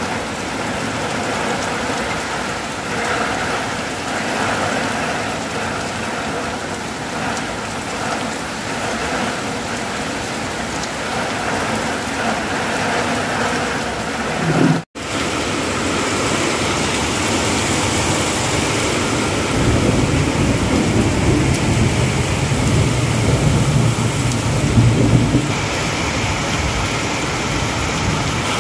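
Heavy rain pouring steadily onto a wet road and ground. In the second half a deep rumble rises over the rain for several seconds, then eases.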